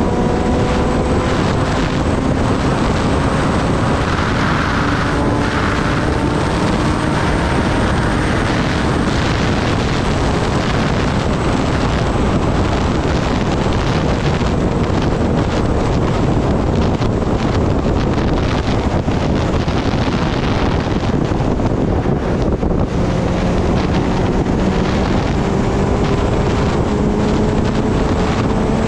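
Kawasaki Ninja ZX-10R's inline-four engine running under way, half buried in loud wind rush on the microphone. The engine note eases slowly down over the first several seconds, fades under the wind, and climbs again over the last few seconds as the bike accelerates.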